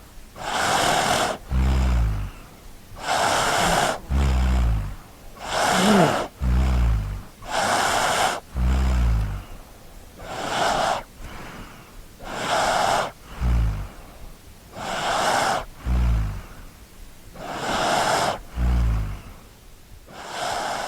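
A child snoring in a steady rhythm: about nine breaths, one every two and a half seconds, each a breathy rush with a low snore.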